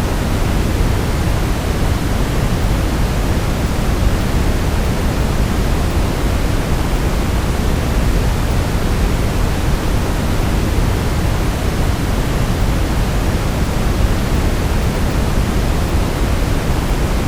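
Steady brown noise: an even, unbroken hiss that is strongest in the low end and thins out toward the top.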